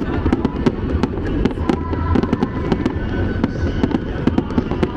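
Aerial fireworks going off in a rapid, unbroken barrage of sharp bangs and crackles over a low rumble.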